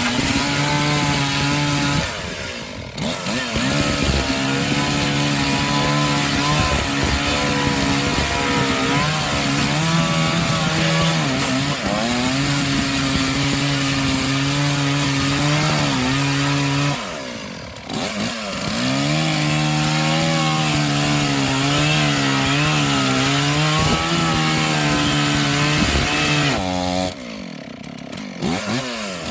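Chainsaw running at high speed and cutting wood. The engine eases off briefly three times, about 2, 17 and 27 seconds in, then revs back up into the next cut.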